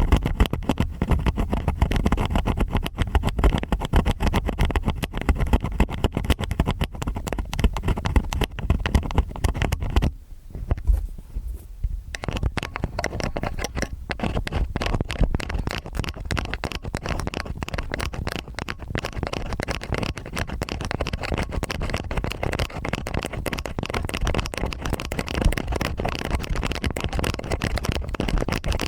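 Stainless steel ear picks scraping and scratching in both ears at once, close to the microphone: a dense run of crackly scratches over a low rumble, with a brief lull about ten seconds in.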